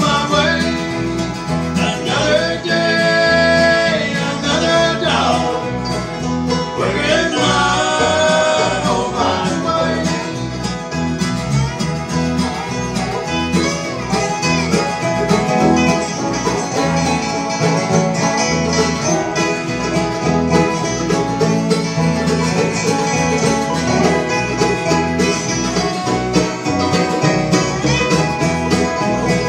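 Bluegrass band playing live, banjo and guitar picking a steady driving rhythm, with a sliding lead line over the top in the first ten seconds or so.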